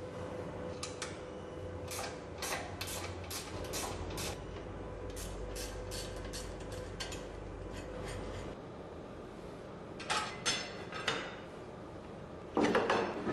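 Hand tools working on the bolts of a progressing cavity pump: runs of sharp metallic clicks and clanks, several a second, with a louder clatter near the end over a faint steady hum.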